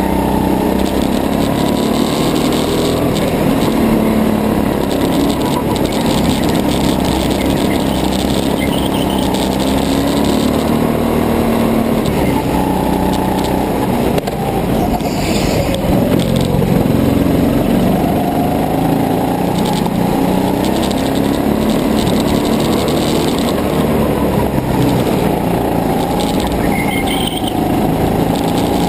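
Rental go-kart's small engine running under load, its pitch rising and falling with the throttle through the corners, dipping and climbing again about halfway through. Heard from a camera mounted on the kart's fairing, with vibration noise mixed in.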